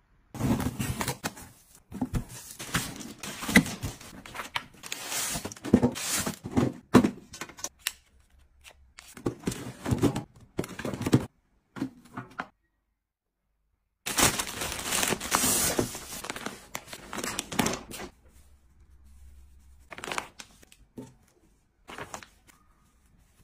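Packaging being crinkled and torn open by hand, in irregular crackly spells with short pauses.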